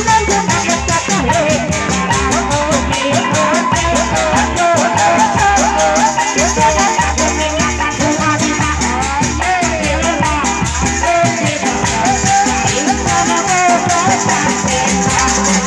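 Live Sundanese sisingaan ensemble music, loud: a wavering, ornamented melody line over dense percussion with a steady, fast beat.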